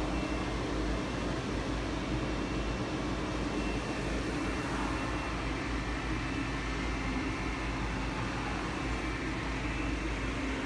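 Steady mechanical hum of an Anderson Maxxis 3116 NC 5-axis CNC router powered up, with a low rumble and a faint high whine, and no cutting heard.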